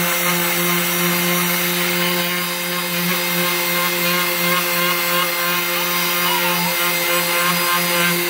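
Orbital hand sander running steadily, sanding acrylic paint off a wooden board: a steady motor hum under a continuous scratchy sanding noise.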